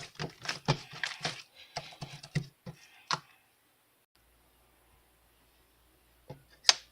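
Keyboard typing: a quick run of keystrokes for about three seconds, a pause, then two more keystrokes near the end.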